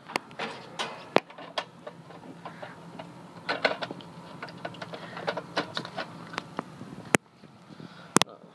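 Irregular sharp clicks and knocks of hands and tools working at an air-conditioning condenser, over a steady low hum that drops away about seven seconds in. The compressor has not yet started; it is held off by the unit's time delay.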